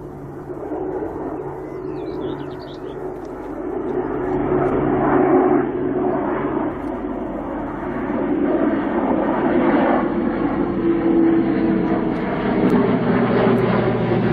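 Airbus A400M Atlas's four TP400 turboprops humming in a flypast, growing louder as it approaches. Steady hum tones sit under the engine noise and slide slightly lower in the second half as it passes.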